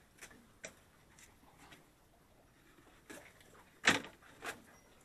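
Plastic oil jugs being handled and set down: a few scattered light knocks and clunks, the loudest about four seconds in.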